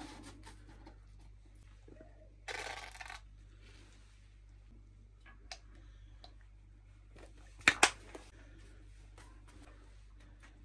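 Light kitchen handling while a burger is assembled in a cardboard box and sauce is squeezed on from plastic squeeze bottles: a brief noisy burst about two and a half seconds in, and two sharp clicks close together later, which are the loudest sounds.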